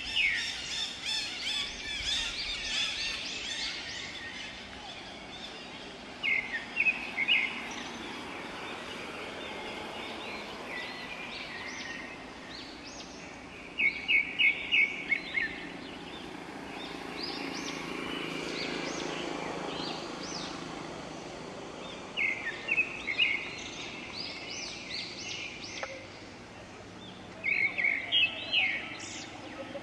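Forest birds calling: a short, fast run of loud chirps repeats about every seven seconds, five times in all, over fainter, higher chirping and a steady background hum of the forest.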